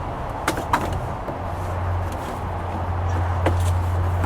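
A few light clicks and knocks of plastic resin shed panels being handled and fitted into the base, over a steady low hum.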